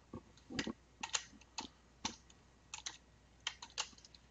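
Typing on a computer keyboard: about a dozen irregularly spaced keystrokes as a short tag is typed.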